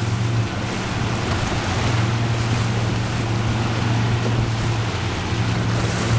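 Twin Mercury outboard motors running steadily at trolling speed, a constant low drone. The rush of the wake and wind on the microphone lie over it.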